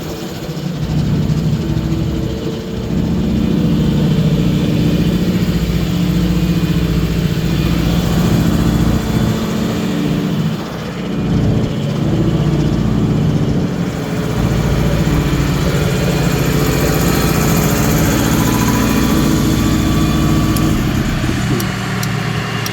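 Cummins turbo diesel engine of a 2014 Ram 4500 truck running steadily, with two brief dips in level.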